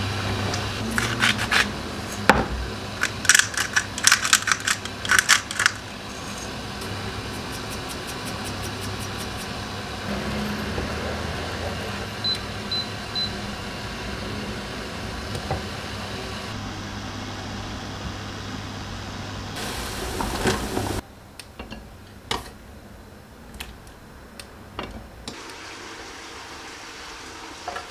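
Kitchen sounds: a clatter of utensils and dishes with sharp clicks for the first few seconds, then a steady low appliance hum with three short electronic beeps partway through. The hum cuts off suddenly, leaving only scattered light clicks and knocks.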